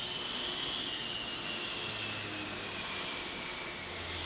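A steady high machine whine that slowly falls in pitch, over a constant hiss.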